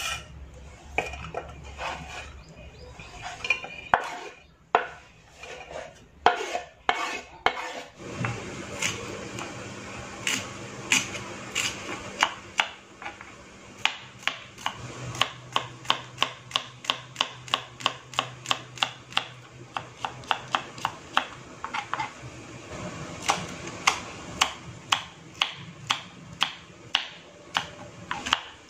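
Kitchen knife slicing shallots and chillies on a wooden cutting board: sharp taps of the blade on the board, irregular at first, then a steady run of about two a second.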